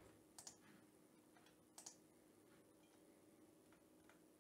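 Near silence with two faint computer mouse clicks, about half a second in and again about a second and a half later.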